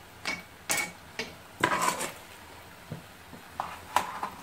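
Metal fireplace tongs clinking and scraping against logs and a metal tray in a wood fire: a run of sharp clanks, some ringing briefly, with a longer scraping rattle about one and a half seconds in.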